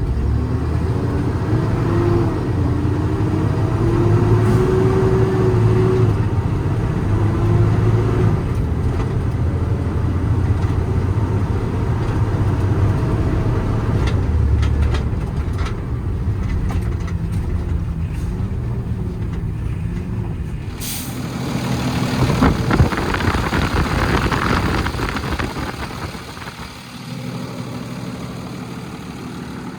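Freightliner M2's 6.7 Cummins ISB diesel running under way, heard from inside the cab, its pitch rising and falling with speed. About two-thirds of the way through there is a sharp click and then a few seconds of loud air hiss, typical of the air brakes being set, after which the engine idles more quietly.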